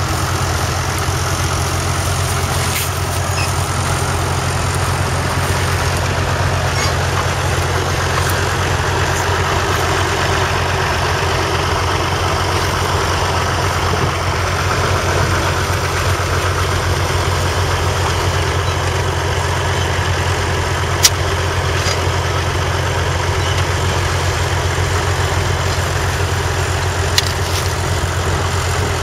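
1961 Massey Ferguson 35's 2.5-litre three-cylinder Perkins diesel engine running steadily under load as it pulls a Ransomes mounted plough through the soil. Two short sharp clicks come near the end.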